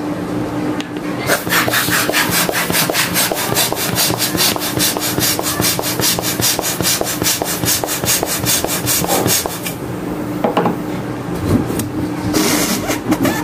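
Quick, regular rasping strokes, about five a second, as a latex punch balloon is pumped up. They stop a few seconds before the end, and a short hiss of air follows near the end.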